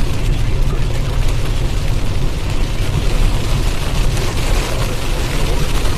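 Loud, steady, deep rumbling noise of a car driving through a storm over a slurry of pea-sized hail on the road.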